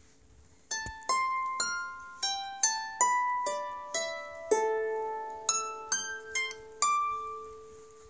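Harp strings plucked one at a time in a slow phrase of about fourteen notes that wander up and down in pitch, starting just under a second in. Each note rings on and fades, and the last note is left ringing.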